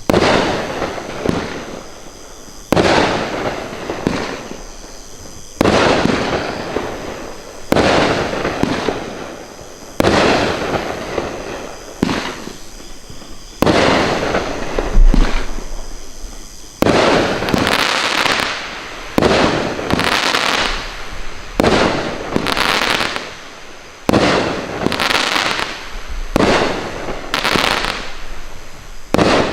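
Bright Star 'Traffic Jam' 500-gram fireworks cake firing: sharp bangs about every two seconds, each trailing off into a crackling decay. From just past the middle the shots come faster, with more hiss and crackle.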